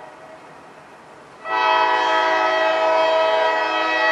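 Air horn of a CSX GE Evolution-series (GEVO) locomotive leading a grain train, sounding for a road crossing: one long blast of several notes together that starts about a second and a half in and holds to the end.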